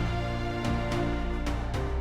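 Background music: sustained tones with notes struck at a regular pulse.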